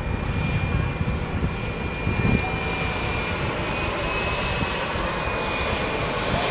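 Cessna 680 Citation Sovereign+ business jet on final approach with its gear down. Its two rear-mounted Pratt & Whitney Canada PW306 turbofans run steadily: a continuous rush of jet noise with a high, even whine over it.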